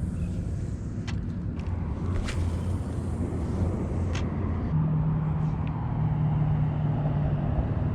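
Highway traffic on a bridge overhead, a steady low rumble. A low engine tone steps up in pitch about five seconds in, and a few light clicks come through.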